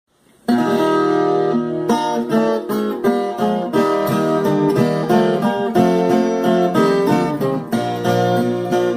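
Rozini 'Tião' model viola caipira, a ten-string Brazilian folk guitar, playing the instrumental introduction of a guarânia. It opens with a strummed chord about half a second in and goes on with plucked melody notes over chords.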